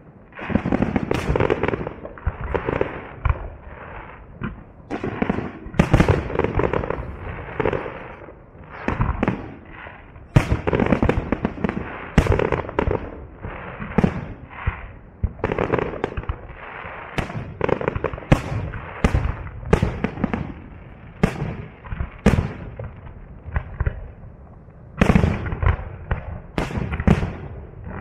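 Aerial firework shells bursting in a fast series of sharp bangs, often several close together, each trailing off in a rumbling echo.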